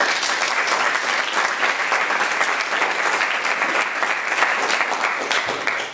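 Audience applauding: a dense, steady round of clapping that starts suddenly and dies away near the end.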